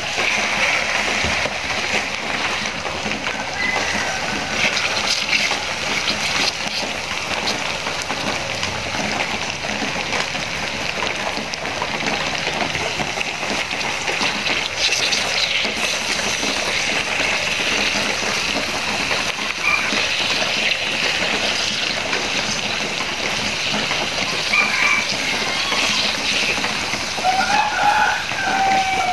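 Chicken pieces sizzling and bubbling in hot spicy sauce in a metal wok, a steady crackling hiss. A few short calls sound faintly in the background, the clearest near the end.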